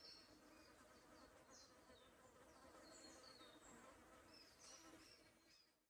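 Faint forest ambience: insects buzzing steadily, with many short, high bird chirps scattered throughout. The sound fades out just before the end.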